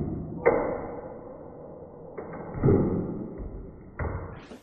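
Film canister rocket: the Alka-Seltzer gas pressure blowing the lid off, heard slowed down as a series of deep knocks and thuds, about four, each fading away slowly.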